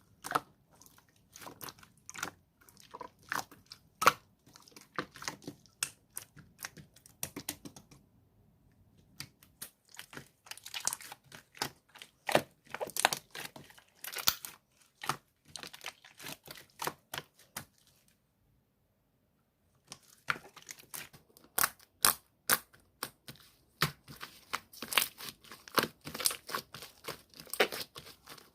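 Slime being squished and stretched by hand, giving off a dense, irregular run of crackling and popping clicks. The sound thins out for a moment about a third of the way in and drops out completely for about two seconds about two-thirds of the way through.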